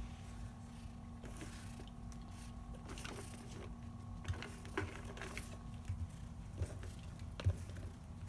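Faint scattered clicks and light knocks of a clear plastic treat tub being nudged by a cat across a wooden floor, over a steady faint hum.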